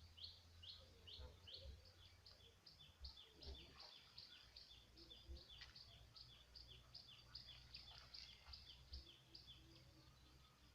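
Faint bird calling over and over: short high chirps, each falling slightly in pitch, about three a second, over a low background rumble.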